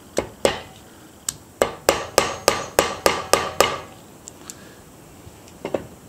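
Small hammer tapping the 2 mm rivet pin of a Victorinox 111 mm pocket knife resting on a metal anvil block, peening the pin over to set the rivet. About a dozen sharp taps, most in a steady run of about three a second, then two more near the end.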